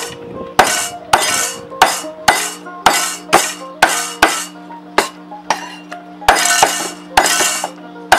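A heavy Chinese cleaver chopping raw bone-in chicken into bite-sized pieces on a wooden chopping block: sharp chops about two a second, with a short pause a little past the middle. Steady background music plays underneath.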